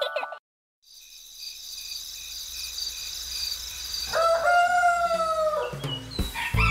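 Last chime notes fade into a moment of silence, then a steady high-pitched chirring of night insects. About four seconds in, a rooster crows once: a long call that drops in pitch at the end.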